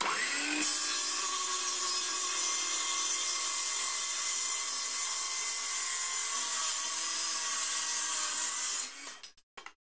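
DeWalt 24-volt cordless circular saw with a 6.5-inch blade, powered through alligator clips from a Milwaukee M18 battery at about 20 volts. It spins up with a brief rising whine, then cuts steadily through a 2x4 for about eight seconds and stops near the end.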